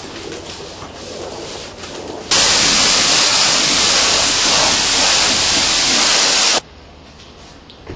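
High-pressure car-wash wand spraying water onto a car's door panel, a steady hiss. It is softer for the first two seconds, comes on much louder about two seconds in, and cuts off suddenly a little over six seconds in.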